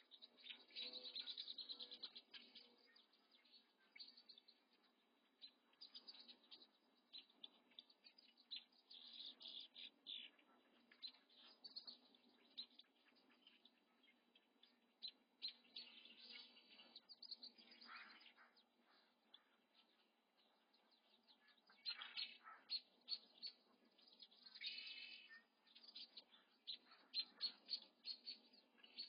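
Crane chicks peeping: faint short, high-pitched chirps that come in bunches, again and again.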